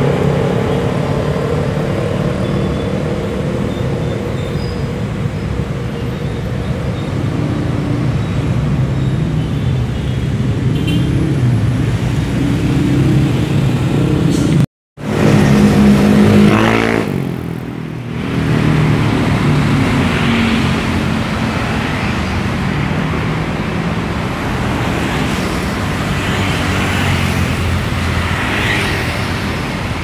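Road traffic: a tour coach's diesel engine running as it pulls away. About halfway the sound drops out briefly, then cars and motorcycles pass on a busy street.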